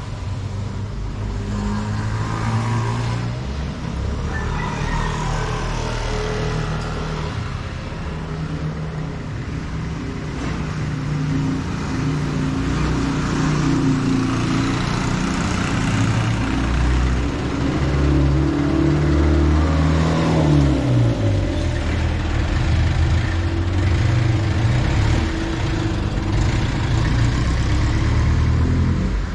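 Road traffic: vehicle engines running close by, with one engine's pitch falling about twenty seconds in as it passes or slows.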